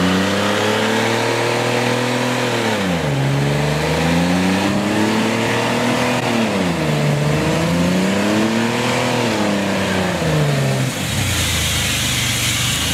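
Pickup truck engine revving hard during a burnout, the rear tyre spinning and smoking on pavement; the engine speed rises and falls about three times. Near the end the engine note drops away and a steady hiss takes over.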